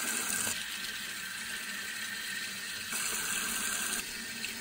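Bathroom tap running steadily into a washbasin, a continuous rush of water that drops in level about half a second in, comes back up around three seconds in, and drops again near the end.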